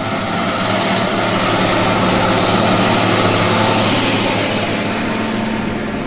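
Case MX120 tractor's Cummins 5.9 L six-cylinder diesel working hard under load while pulling a plough through the soil. The engine noise grows louder toward the middle and eases off again near the end.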